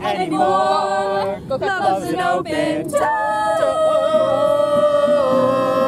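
A group of young women singing together to an acoustic guitar, ending on one long held note that lasts about three seconds.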